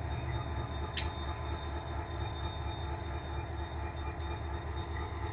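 Freight train of grain cars rolling slowly past with a steady, evenly pulsing low rumble and a faint high steady grinding tone from the wheels, as the train is grinding down. One sharp click comes about a second in.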